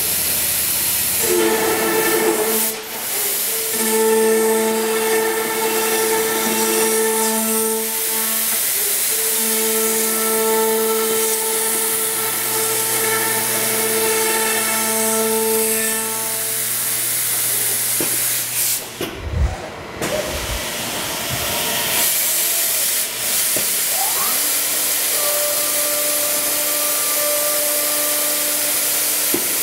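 Kval MLX CNC door machine routing the lock side of a door: the router spindles whine at steady pitches over a loud hiss, and the pitch shifts as the spindles stop and restart. About two-thirds through, the hiss cuts out briefly over a low rumble. Soon after, a spindle spins up in a rising whine and settles on a new steady pitch.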